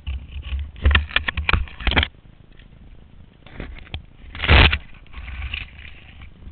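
Skier pushing through tight conifer branches in deep snow, with branches and snow knocking and scraping against the mounted camera. It starts as a quick run of sharp clicks and knocks about a second in, brings a few more near four seconds, and ends with a louder half-second rush of noise about four and a half seconds in.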